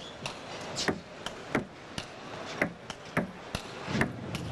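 Table tennis rally: the celluloid ball clicking off the players' bats and bouncing on the table, a sharp tick every half second or so, in the echo of a large hall.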